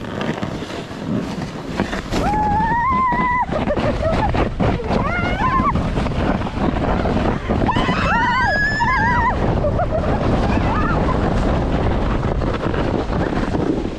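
Sled sliding fast down a snow hill: a loud, steady rush of the sled scraping over the snow with wind buffeting the microphone. High-pitched shrieks from the riders break out about two seconds in, briefly around five seconds, and again around eight seconds.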